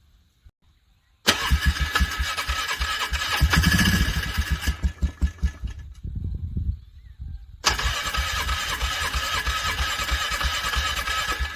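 ATV engine being cranked by its electric starter in the cold: a first cranking burst of about three seconds with a fast regular chugging under the starter's whine, a few uneven low pulses as it dies away, then after a short pause a second cranking burst of about four seconds that stops suddenly. The engine is struggling to turn over and catch in the freezing weather.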